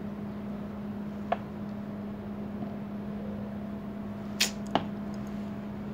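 Metal pump parts knocking together as they are handled: three sharp clicks, one about a second in and two close together a little past four seconds in, over a steady low hum.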